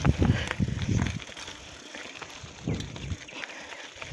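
Mountain bike with knobby tyres rolling over a loose gravel dirt road, with scattered clicks and rattles. It is louder in the first second and quieter after.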